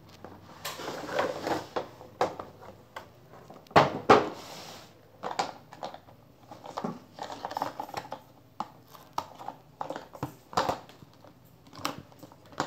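Cardboard box and plastic packaging handled while a toy garbage truck is unboxed: rustling and crinkling with scattered clicks and knocks. Two sharp, louder knocks come about four seconds in.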